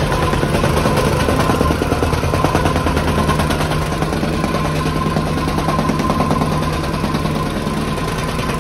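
Petrol tamping rammer (jumping-jack compactor) running, its foot rapidly striking a soil floor in a steady stream of impacts over the drone of its small engine.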